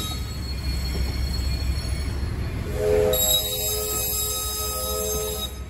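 Train air horn sounding a chord of several held tones: a short blast about three seconds in, then a long blast, over the low rumble of an approaching train.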